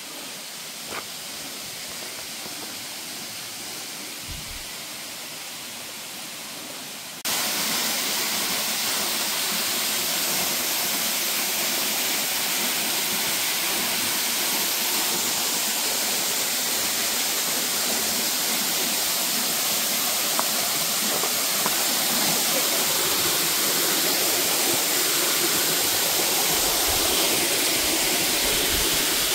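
Steady rushing of a waterfall, which becomes suddenly much louder about seven seconds in.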